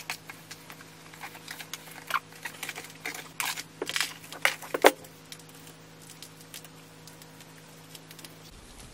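A spoon scraping and knocking in a plastic tub while stirring a thick, clumpy mix of wet sand, glue and detergent, with irregular clicks and scrapes that stop about five seconds in. A faint steady hum continues underneath.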